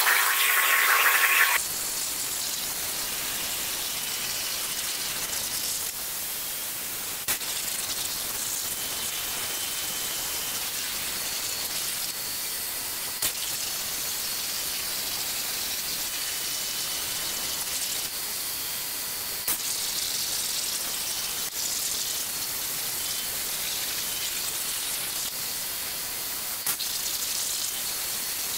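CNC plasma cutting torch cutting 3 mm steel plate: louder for the first second or so, then a steady high-pitched hiss. A few brief clicks stand out over it.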